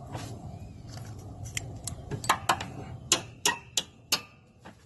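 Metal clicks and clinks of cotter pins being fitted into the mower deck's hanger rods, about six sharp ticks in the second half, some with a short metallic ring.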